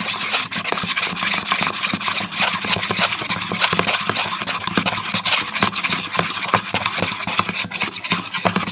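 A utensil stirring a soapy slime base in a bowl, making continuous rapid scraping and rubbing strokes.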